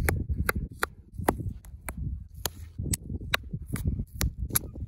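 Air bladders of bladder wrack seaweed popping one after another as gloved fingers squeeze them: a quick series of sharp little pops, about three a second, over the low rustle of the seaweed being handled.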